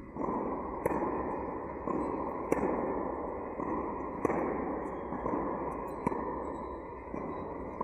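Tennis balls struck by racquets in a volley exchange: a sharp pock about every second and three-quarters, with fainter hits from the far side of the net in between, over steady background noise.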